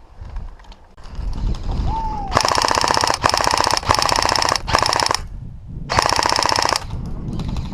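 Airsoft electric gun firing several full-auto bursts: rapid, even clicks over the whine of its motor and gearbox, in four bursts of about half a second to a second and a half each.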